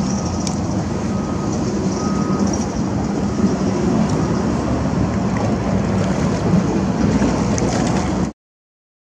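Steady outdoor rushing noise with a low rumble, cutting to dead silence about eight seconds in.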